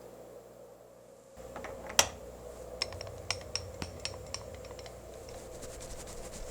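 Low steady hum steps up about a second and a half in, then one sharp metallic click followed by a string of lighter clicks and taps, with faint rapid ticking near the end: small metal tools and parts being handled at a lathe.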